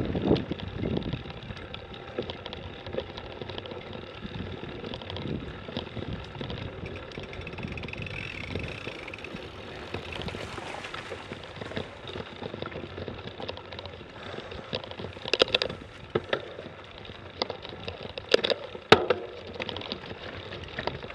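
Mountain bike rolling over a bumpy dirt trail: a steady rattle of tyres, chain and frame, with a few sharp knocks in the second half.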